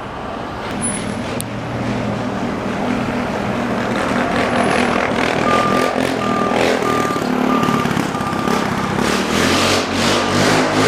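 Street traffic heard from a bicycle: motor vehicle engines running with road noise. From about halfway through, a steady series of short high beeps comes in at about two a second.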